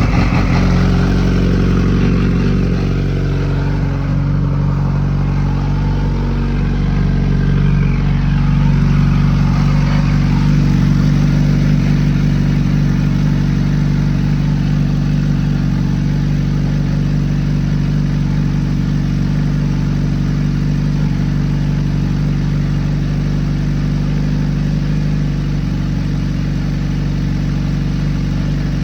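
Kawasaki Z H2's supercharged inline-four engine idling steadily just after being started, run to circulate fresh oil after an oil change before the level is rechecked.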